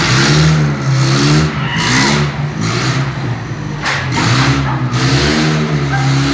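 Old forklift's engine running and revving up and down several times as it pushes at the wall and then reverses away.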